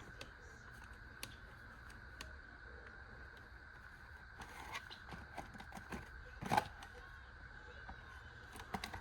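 Scattered faint clicks and taps of small parts being handled while an RC car's wheel nut is worked back onto its thread, with a louder cluster of clicks about six and a half seconds in.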